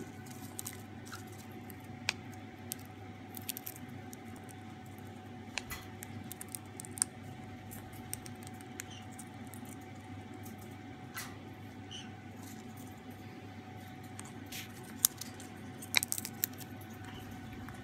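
Sun conure pecking and nibbling popcorn from a metal bowl: scattered sharp clicks and small crunches at irregular intervals, busiest near the end, over a steady low background hum.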